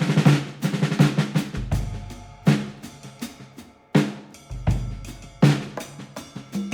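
Percussion-heavy music: sharp drum hits in a repeating pattern, with a deep bass beat about every three seconds.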